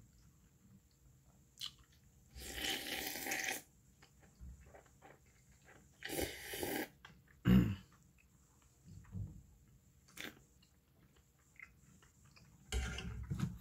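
A person slurping beef tripe and intestine soup off a fork, three long slurps about a second each, with chewing and mouth clicks between them. A short sharp knock comes just after the second slurp.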